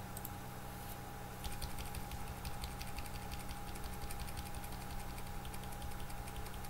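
Rapid, repeated clicking of computer keys, starting about a second and a half in, over a steady low electrical hum and a faint steady whine.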